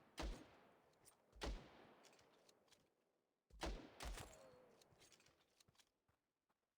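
Four sharp bangs, two close together in the middle, each followed by a long echoing fade.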